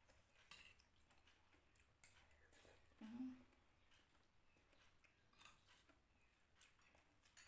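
Near silence: faint chewing and soft spoon clicks on plates during a meal, with a brief low hum of a voice about three seconds in.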